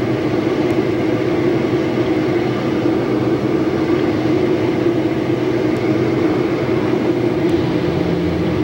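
Automatic car wash machinery running, a steady mechanical drone with a constant hum, heard from inside the car being washed.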